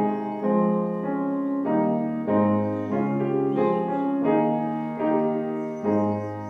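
Piano playing a slow passage in sustained chords, a new chord about every half second, with a final chord struck near the end that starts to fade away.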